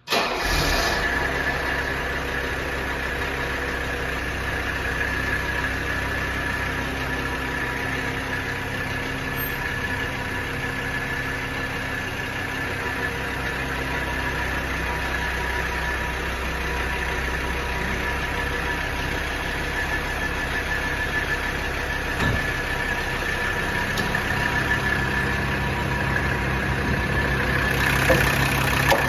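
Mercedes-Benz 300D five-cylinder turbo diesel engine idling steadily, getting louder near the end.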